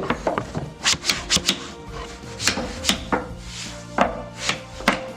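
About ten sharp, irregular taps as back-panel wedges are knocked tighter into a cabinet, with background music.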